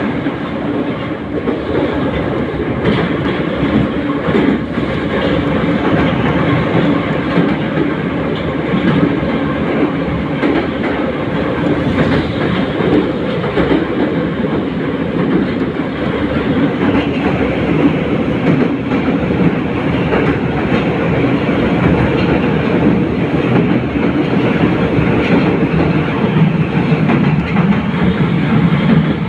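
Inside a moving metro car: the steady running noise of an 81-717/714-type subway train travelling through the tunnel, with the clickety-clack of wheels over the rail joints.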